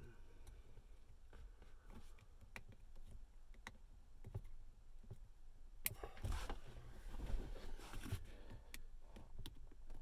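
Faint scattered clicks and plastic rustling as a small zip tie is worked through the hole in a car's gear shift lever under the knob. There is a busier patch of handling noise about six to eight seconds in.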